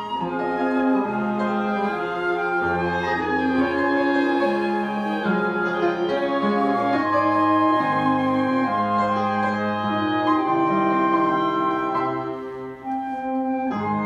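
Live chamber music: upright piano with flute and other instruments playing slow, long held notes, a low bass note coming in a few seconds in.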